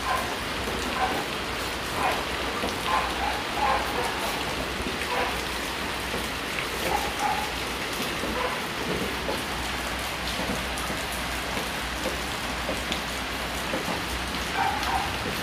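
Steady, even hiss of noise with a few faint brief sounds scattered through it, and a low hum beneath.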